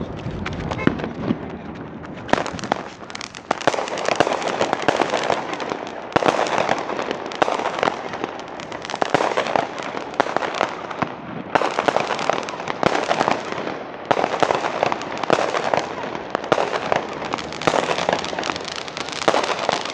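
Consumer fireworks finale going off shot after shot: dense crackling throughout, with louder bangs roughly once a second.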